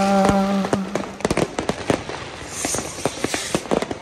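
New Year's fireworks and firecrackers going off in rapid, irregular cracks and bangs. A held pitched tone sounds over them at first and stops about a second in.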